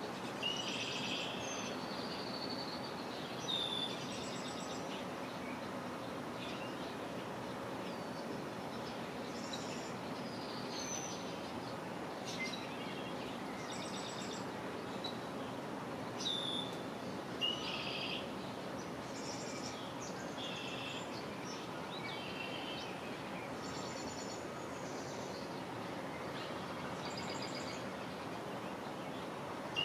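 Songbirds calling and singing from the shoreline reeds: short high chirps and phrases every second or two, several in overlapping bursts, over a steady background hiss.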